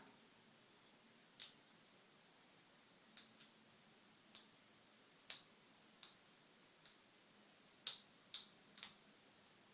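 Sharp, irregular clicks from a lock pick working the pin stack of an American Lock Series 20 five-pin padlock under tension during single-pin picking, about a dozen over several seconds, the loudest near the middle and end.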